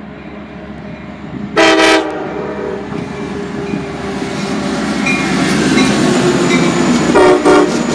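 Metra locomotive's Nathan K5LA air horn sounding one short loud blast about a second and a half in, then two quick blasts near the end. Between them the approaching train's rumble and wheel clatter on the rails grow steadily louder.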